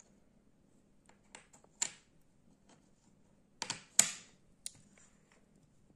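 Wooden jigsaw puzzle pieces clicking and knocking against each other and the tabletop as they are handled and pressed into place. It comes as a few light taps, then a louder cluster of knocks a little past halfway, the loudest of them about four seconds in.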